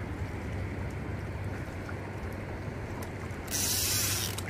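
Boat engine idling with a steady low hum, under a haze of water and wind noise; a brighter rushing hiss comes in about three and a half seconds in.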